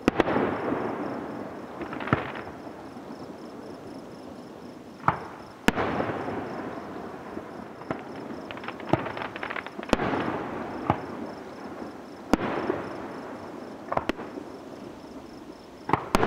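Aerial fireworks shells bursting in the sky: about ten sharp bangs, one every second or two, each trailing off in a long rolling echo.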